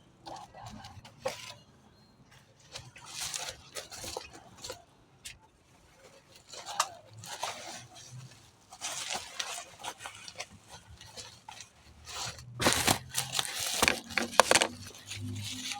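Irregular handling noises: rustling, scraping and light clinks of items and packaging being moved about, busiest and loudest near the end.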